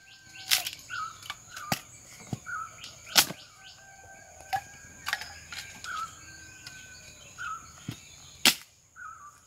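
Dry sticks snapping as firewood is broken by hand: about seven sharp cracks at uneven intervals, the loudest about three seconds in and another near the end.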